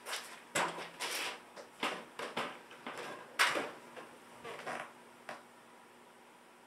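Scattered metal clicks, rattles and rustles of hand work: a 10 mm socket being fitted to a cordless impact driver and hardware being picked up. They stop about five seconds in.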